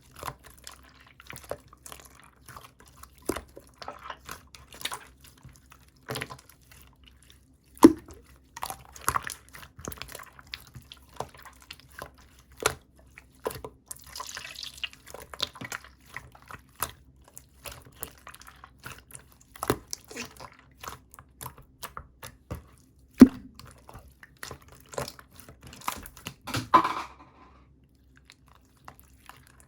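Hands squeezing, pressing and stretching a black, glossy, chewy play material, giving a steady run of sticky wet clicks and small pops. Two sharper, louder snaps come about a third of the way in and again near three quarters.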